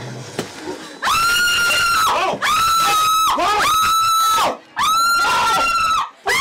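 A person screaming: a string of long, high-pitched shrieks, each held a second or more, starting about a second in.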